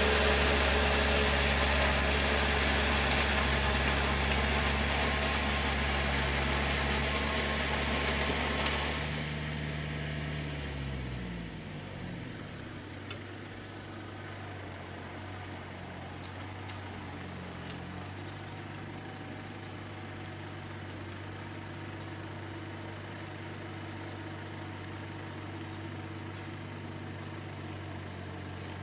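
Yanmar EF453T tractor's diesel engine running loud and steady at working speed, then throttled back about nine seconds in, its pitch falling over a couple of seconds to a steady, quieter idle.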